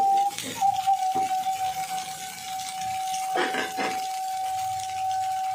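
A steady high tone of unknown source runs throughout, with a short break near the start. Over it a metal spoon scrapes and clinks against a steel plate of dosa filling: once early, once about a second in, and longer a little past the middle.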